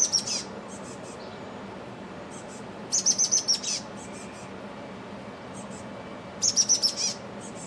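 Chestnut-backed chickadee calling: three short bursts of rapid, high-pitched notes, a little under a second each, about three and a half seconds apart. The first starts right at the beginning, the next about three seconds in, and the last about six and a half seconds in.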